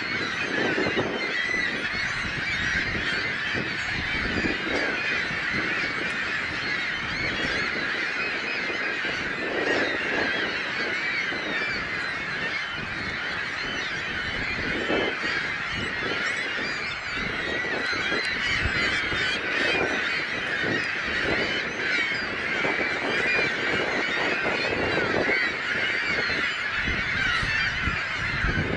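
A large flock of birds calling all together, a dense, unbroken clamour of many overlapping honking calls.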